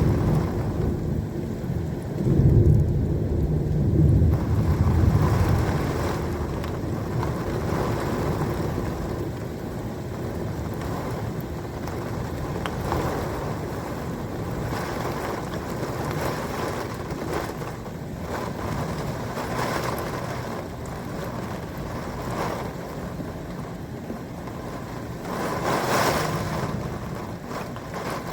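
Thunder rumbling heavily in the first few seconds, then fading under a steady wash of rain, with a brief louder swell near the end.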